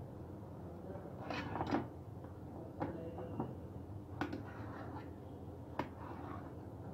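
Kitchen knife cutting lengthwise through a peeled bottle gourd on a steel plate, with several sharp taps where the blade knocks against the plate.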